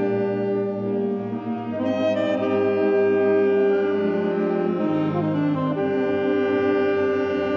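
Alto saxophone playing a slow solo melody of long held notes over a wind band accompaniment.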